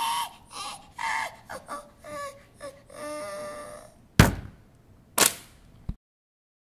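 High-pitched voiced cries and whimpers in short bursts, bending in pitch, done as cartoon character voices. Then two sharp, loud thuds about a second apart, after which the sound cuts off.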